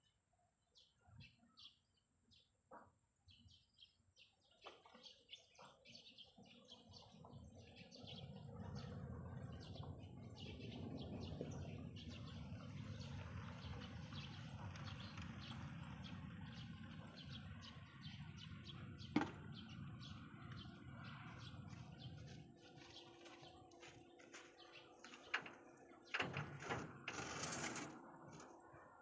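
Faint, repeated short chirps of small birds. A low rumble builds in the middle and fades out after about 22 s, and there is a sharp click around two-thirds of the way through and a few knocks near the end.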